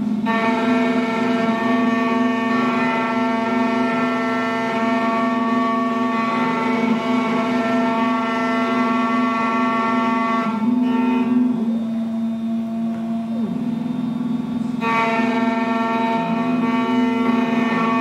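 Alpha automatic key cutting machine whining steadily as its spindle-driven end mill cuts a Honda Accord laser key blank. The higher part of the whine drops away for about four seconds in the middle, with a gliding tone as the cutter head moves, then returns.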